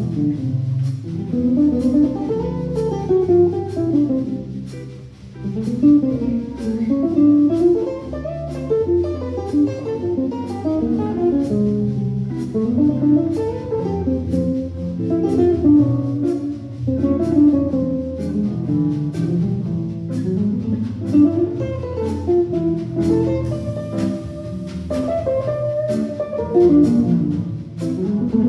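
Live small-group jazz: several guitars playing over a double bass and a drum kit, with a steady beat ticking on the cymbals.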